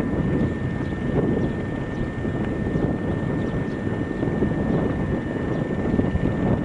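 Steady industrial machinery running: a low mechanical roar with a thin, steady high whine above it and faint scattered ticks.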